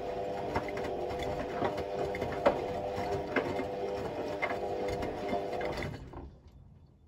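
Hotpoint Ultima Extra WMA64 washing machine's newly fitted motor turning the drum during a wash, a steady whine with occasional knocks, then stopping about six seconds in as the drum pauses.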